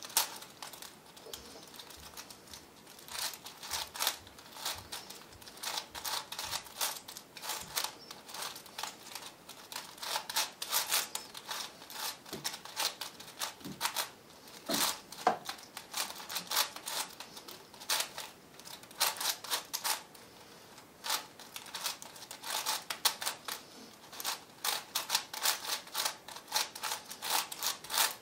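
V-Cube 7 (7x7x7 plastic puzzle cube) being turned by hand: rapid, irregular clicking and clacking of its layers, in bursts with short pauses between runs of turns.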